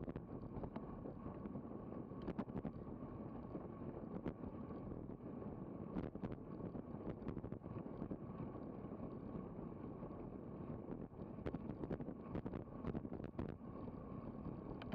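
Wind rushing over an action camera's microphone on a road bike moving at about 26 mph, a steady rumbling rush with scattered sharp clicks and knocks.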